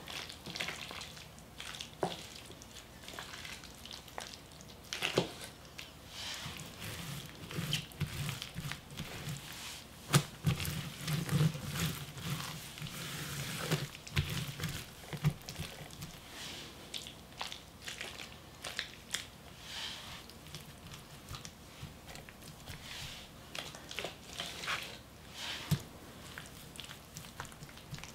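Gloved hands smearing thick chili seasoning paste over a napa cabbage leaf and pressing the kimchi filling onto it: sticky, wet squelching with many small clicks and pats, busiest in the middle.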